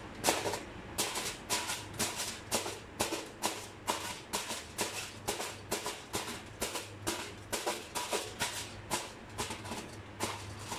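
Knife point jabbing holes in aluminium foil stretched over a cooking pot: a steady run of sharp, crinkly pops, about three a second.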